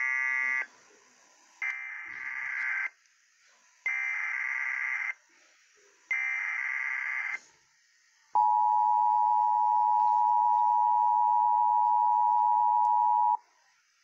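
Emergency Alert System Required Monthly Test: three screeching bursts of SAME digital header data about a second apart, then the steady two-tone EAS attention signal held for about five seconds before it cuts off.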